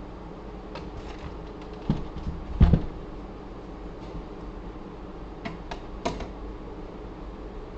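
Knocks and clunks of a Lenovo tower PC's sheet-metal case being turned and handled, the loudest a little over two and a half seconds in, followed by a few lighter clicks around five to six seconds in.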